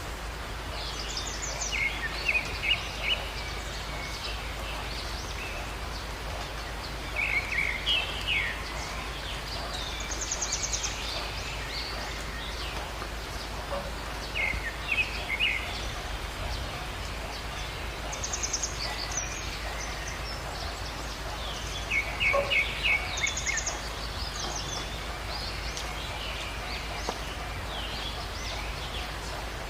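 Birds calling in short chirping bursts every few seconds, including a fast high trill, over a steady background hiss and low rumble.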